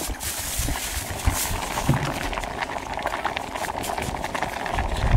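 A metal pot of liquid boiling hard over an open wood fire, a steady bubbling, with a few low thumps.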